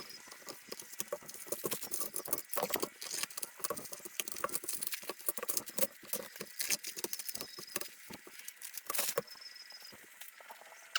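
Unboxing and handling thin laser-cut aircraft sheet-metal parts and their packing: irregular rustling, scraping and light clicks and taps, with a few brief faint metallic rings.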